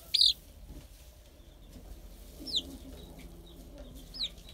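Bantam chick peeping: one loud, high peep right at the start, then two fainter single peeps about two and a half and four seconds in.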